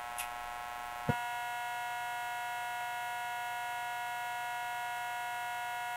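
Steady electrical hum with several fixed whining tones, unchanging in pitch; a click about a second in, after which the hum is slightly louder.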